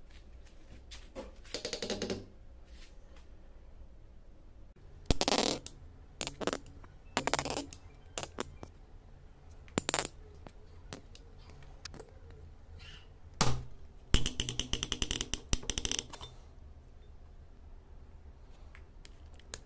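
Steel screwdriver tip scraping and clicking against a rusty knurled nut and the steel nose of an old air stapler, in several short bursts of rapid scratchy clicks. The longest burst, about two seconds, comes near the end.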